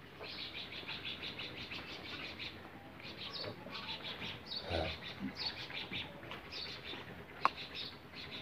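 Small birds chirping in rapid, continuous trains, with a low thud near the middle and a single sharp click about seven and a half seconds in.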